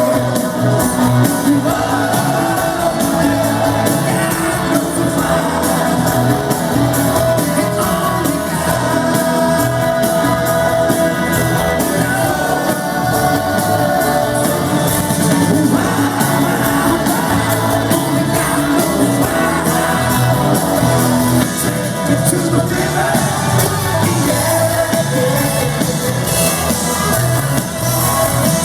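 Live rock band playing loud, with singing over it.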